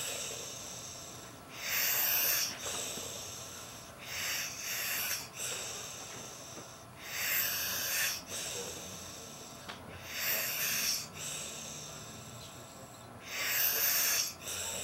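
A man snoring in deep sleep: a loud, wheezy, hissing snore about every three seconds, five in all, with quieter breathing between.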